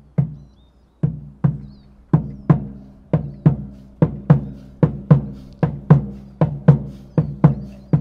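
Drum struck by hand in a steady rhythm of about three strokes a second, each stroke a short low ringing tone. A lone stroke comes first, and the beat settles in about a second in.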